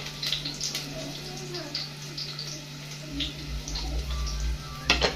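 Kitchen knife cutting a tomato held in the hand over a plate, a scatter of small ticks and taps as pieces drop, with a louder clatter near the end, over a steady low hum.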